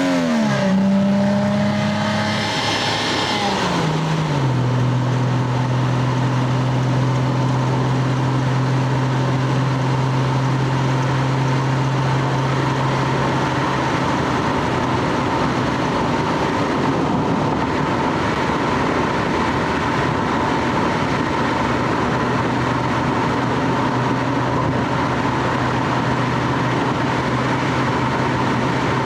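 Stock Lexus GS300's 2JZ-GE straight-six engine and exhaust under way. Its pitch drops twice in the first few seconds, as at upshifts, then holds one steady note as the car cruises.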